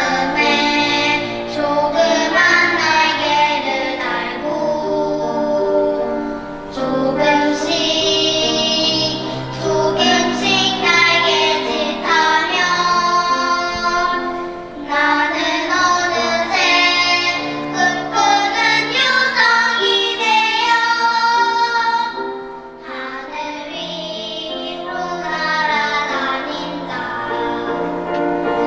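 Children's voices singing a song in long held notes over steady instrumental accompaniment.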